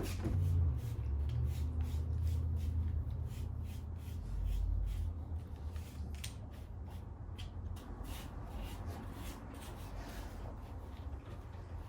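Light scratchy rubbing and handling strokes, one after another, over a steady low rumble.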